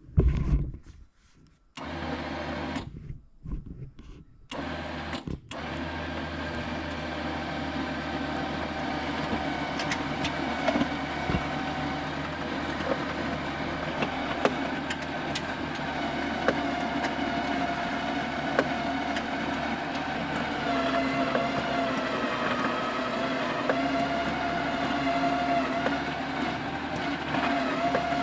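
Electric winch motor on a truck whining as it pulls. It runs in a few short spurts, then runs continuously, its whine sagging slightly in pitch partway through as the load comes on.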